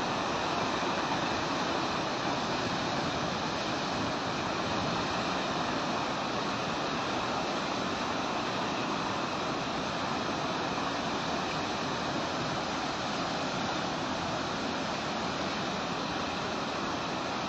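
Floodwater rushing in a swollen river, a steady unbroken rush of water.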